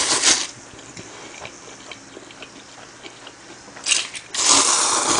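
A mouthful of bibim jjolmyeon noodles slurped up, then chewed, then another long slurp near the end.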